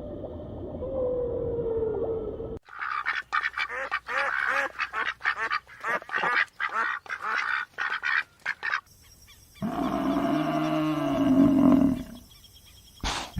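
Ducks quacking in quick, repeated runs for about six seconds. This follows a cut from a held, wavering animal call at the start, and a longer, lower call comes in after another cut.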